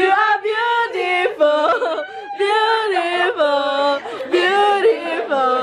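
A high female voice singing a melody in long held notes, sliding and stepping between pitches, with no clear accompaniment.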